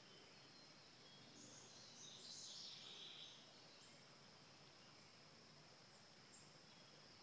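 Near silence: faint background hiss with a thin steady high tone, and a brief faint high-pitched sound about two seconds in.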